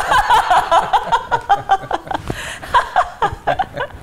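A man and a woman laughing together, in quick repeated bursts of giggling and chuckling.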